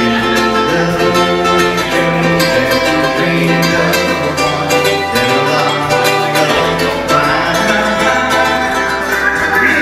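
Live ukulele jam: several ukuleles strummed together, with a low bass line underneath.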